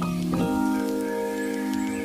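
Background music: held synthesizer chords under light struck notes, changing chord about half a second in.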